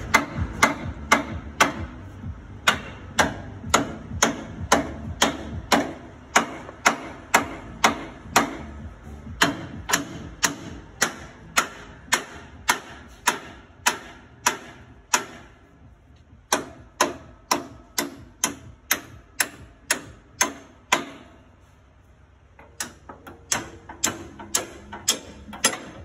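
Hand ratchet wrench clicking as a nut is turned, about two sharp clicks a second in a steady rhythm, with two short pauses about 15 and 21 seconds in.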